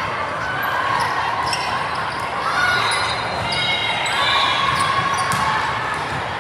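Indoor volleyball gym sound: short squeaks of sneakers on the court floor, ball hits or bounces, and a background murmur of voices in the echoing hall.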